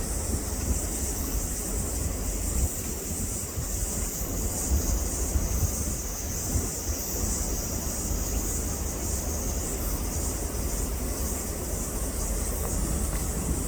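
Steady low rumble of wind buffeting the microphone, with a constant high hiss above it.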